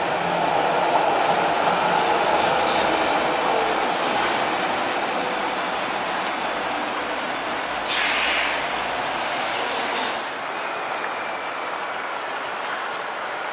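Articulated tram passing close by on street track: a steady rumble of wheels on rail, with a short hiss about eight seconds in, and quieter after about ten seconds.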